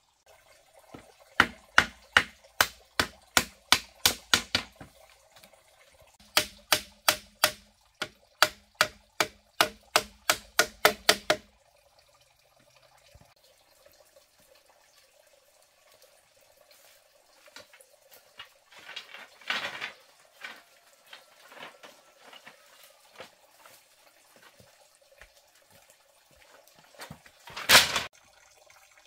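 Hammering on a bamboo cage frame: two runs of quick, sharp knocks, about three a second, each run lasting several seconds. Then lighter scattered clatter of bamboo pieces, and one loud clack near the end as bamboo slats are handled.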